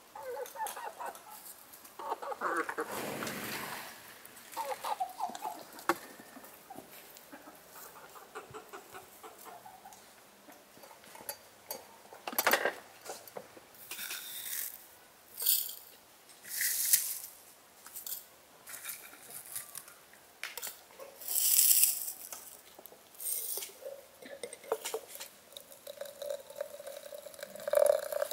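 Farmyard fowl clucking in the first few seconds, then dry crackly rustling as loose black tea and dried herbs are picked up and let fall by hand. Near the end, water from a samovar tap starts pouring into a glass teapot with a steady tone.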